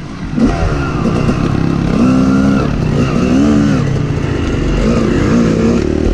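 Dirt bike engine revving up and falling back again and again as it is ridden over a rough trail, its pitch rising and dropping every second or so.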